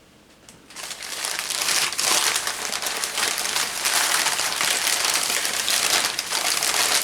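Packing material being crumpled and unwrapped by hand: a dense crinkling crackle that starts about a second in and keeps going.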